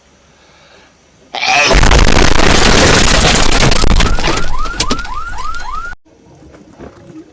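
A sudden, deafening, heavily distorted explosion-like blast from an edited meme soundtrack, starting about a second and a half in and cutting off abruptly about six seconds in. In its last second and a half, rising squeal-like chirps repeat about three times a second.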